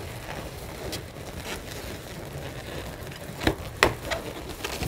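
Latex modelling balloons being handled, twisted and tied together, with faint rubbing, then two short, sharp sounds of rubber squeaking or snapping about a third of a second apart near the end.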